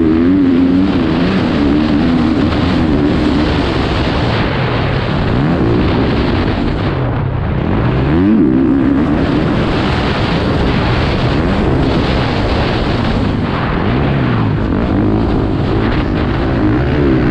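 Motocross bike engine running hard at full throttle, its pitch climbing steeply with each burst of acceleration and dropping off between, several times over, with heavy wind noise on the microphone.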